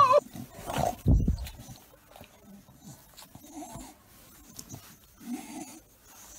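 A dog making a few short, soft sounds while nuzzling, with a low thump about a second in.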